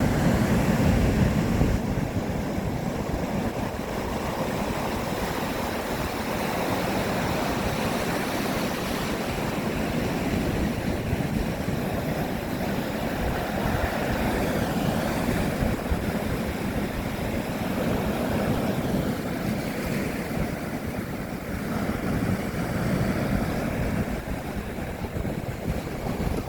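Sea waves washing, with wind buffeting the microphone in a steady rush of noise.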